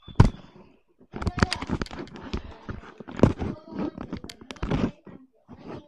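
Handling noise from a hand-held camera being jostled and tumbled: irregular knocks, bumps and rustling right on the microphone. A sharp knock comes just after the start, and another strong one about three seconds in.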